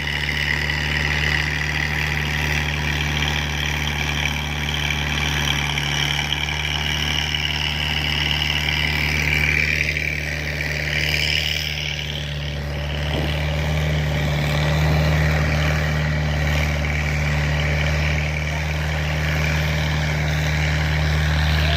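Engine of a sludge-dredging boat running steadily, driving the suction pump that sends sludge down the delivery pipe.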